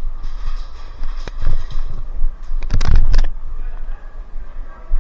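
Airsoft guns firing: a single sharp shot about a second in, then a quick cluster of shots around the middle. A steady low rumble runs under them.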